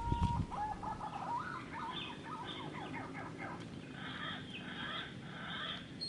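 Wild birds calling: a busy mix of rapid chirps and short whistled notes, with a single held whistle at the start.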